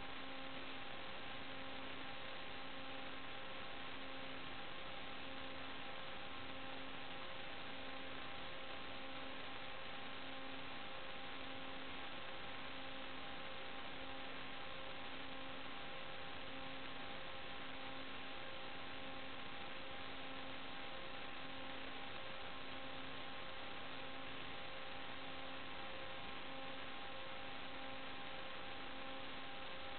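Steady electronic hiss and hum with several faint fixed tones and a low tone pulsing on and off a little under once a second. It does not change with the flight, and fits noise on the audio channel of an analog FPV video link rather than the aircraft's motors.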